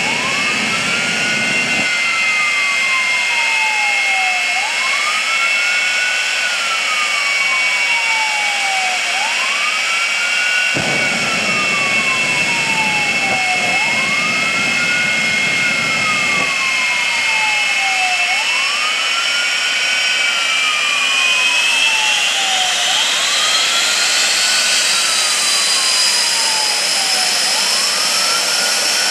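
Twin Rolls-Royce Bristol Viper jet engines of a jet-powered fire truck running with a loud, steady high whine that climbs in pitch as they spool up, about three-quarters of the way through. Over it a siren wails in slow cycles, rising quickly and falling slowly about every four and a half seconds. Twice there is a stretch of low rumble.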